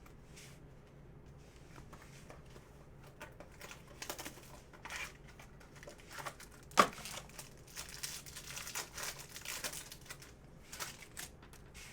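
Plastic trading-card packaging crinkling and tearing as cards are handled, with one sharp snap about seven seconds in as the loudest sound.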